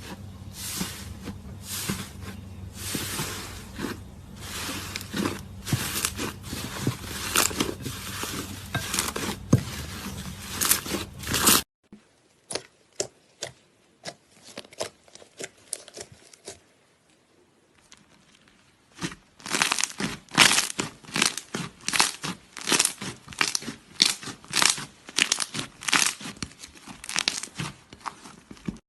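Slime being squeezed and stretched by hand, giving a dense run of crackles and small pops. About twelve seconds in the crackling thins to scattered clicks and goes nearly quiet, then comes thick again for the last ten seconds.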